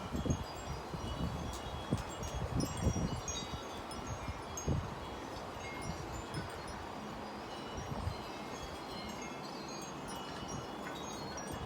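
Wind chimes ringing irregularly in the wind, many short clear high notes. Gusts of wind buffet the microphone during the first five seconds or so.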